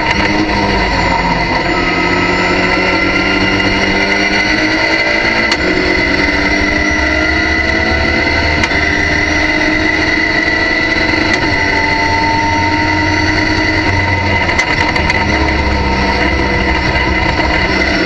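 Race car engine at full throttle, heard from inside the cockpit, its pitch climbing slowly through a long pull in fourth gear. About two-thirds of the way through the pitch falls back as it shifts down to third, then it pulls again, with a steady high whine over it.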